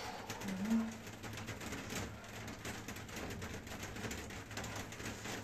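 Soft thuds of bare feet stepping on an exercise mat. About half a second in there is a short, low, rising call or grunt.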